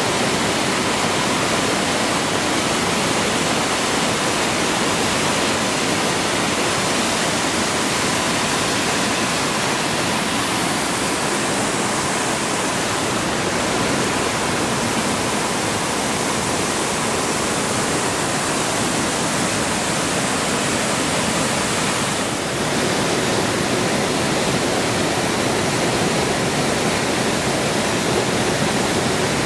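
Horeb Falls' multi-level cascade rushing steadily over rock: a dense, even roar of falling water, with a brief dip about three-quarters of the way through before the rush carries on.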